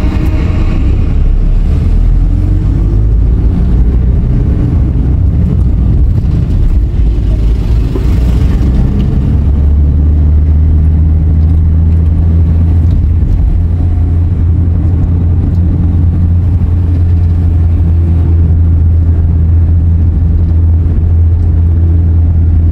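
A car driving along a road, heard from inside: a steady low drone of engine and tyre noise that grows stronger and deeper about nine seconds in.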